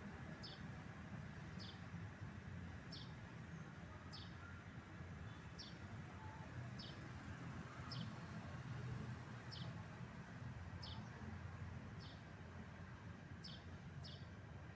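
A bird chirping a short, high note about once a second, over a steady low rumble of outdoor background noise.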